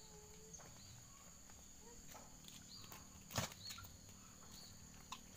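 Quiet background of a steady high insect drone, with a few short faint bird chirps and a single sharp click about three and a half seconds in.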